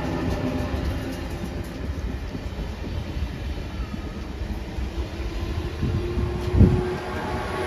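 Double-deck electric commuter train rolling past along the track with a steady rumble. A steady motor tone comes in about five seconds in, and a single thump near the end is the loudest sound.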